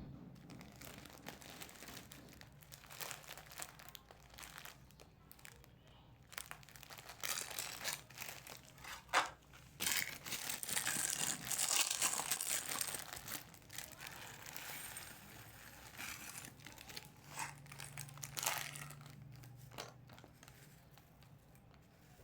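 Snack packaging crinkling as it is handled, an irregular crackle that is loudest about halfway through.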